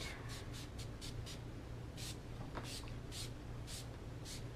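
Quick, light rubbing strokes over the finish of a wooden rifle stock, by hand with a small abrasive pad or paper: a short dry scratch with each stroke, about two strokes a second, uneven in rhythm.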